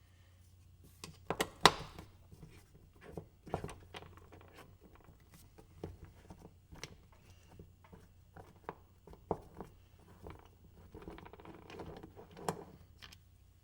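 Scattered clicks and knocks of a two-piece kart wheel being pulled apart by hand, its halves, bearing and inner-tube tire handled, with a low steady hum underneath. The loudest knocks come about one and a half seconds in.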